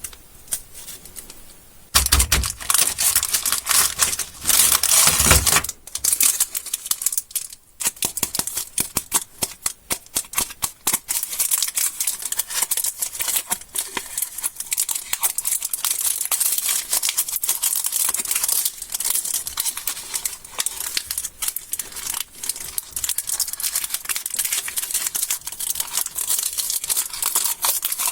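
Candy wrappers being torn open and crinkled by hand: quiet at first, then from about two seconds in a continuous crackling and crinkling full of rapid clicks, heaviest for the first few seconds.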